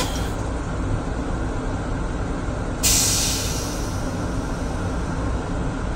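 Metro-North M7 railcar toilet flushing: a hissing rush of water cuts off just after the start, and about three seconds in a second hissing rush comes on and fades over a second or so, over the steady low rumble of the moving train.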